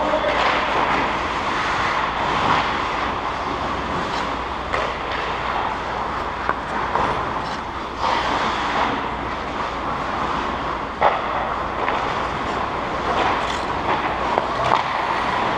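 Ice hockey rink ambience: a steady rushing noise with scattered sharp clacks of sticks and puck from the play, the sharpest one about eleven seconds in.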